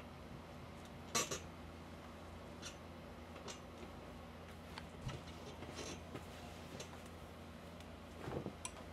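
Quiet handling noises from ironing clothes: a sharp clack about a second in, then scattered soft clicks and fabric rustles, with a short rustle near the end, over a steady low hum.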